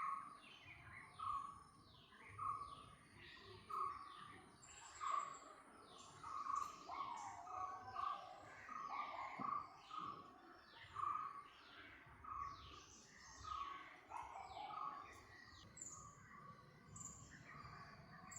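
Several birds calling together: one repeats a short note over and over, roughly twice a second, while others give quick falling chirps, over a faint outdoor hiss.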